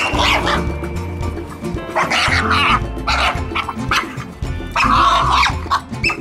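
A French bulldog puppy making harsh, breathy play noises in several bursts, the longest about five seconds in, while playing with a ball. Background music plays throughout.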